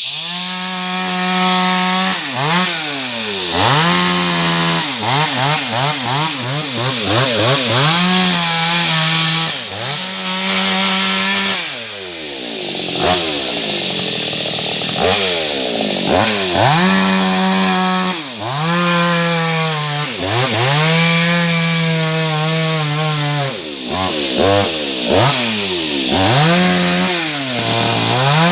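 Chainsaw running and cutting wood, its engine pitch repeatedly rising as it is revved and falling back, many times over. It comes in suddenly at the very start.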